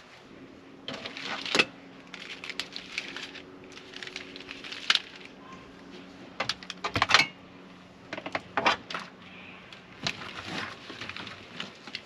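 Scattered small clicks, taps and rustles of small parts and wiring being handled, over a faint steady hum that stops near the end.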